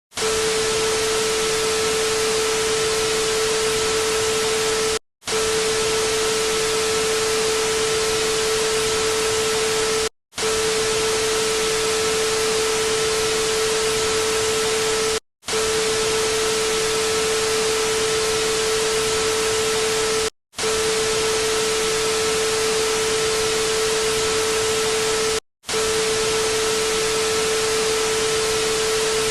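Steady static hiss with a steady mid-pitched tone running under it, repeating in stretches of about five seconds, each cut off by a brief silence.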